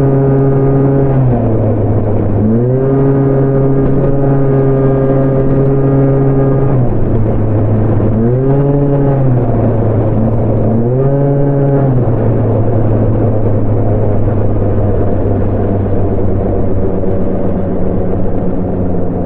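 Honda Gyro scooter engine being revved with the throttle. It is held at higher revs twice for a few seconds, then given two short blips about halfway through, then settles into a steady idle.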